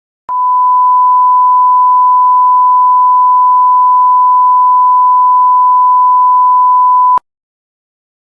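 Broadcast line-up test tone: one steady, pure, loud beep held for about seven seconds, then cut off suddenly. It is the sign of the channel's output having failed.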